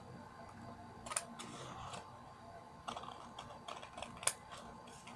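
Scissors cutting through a sheet of scratch paper: a few short, sharp snips, the loudest a little over four seconds in.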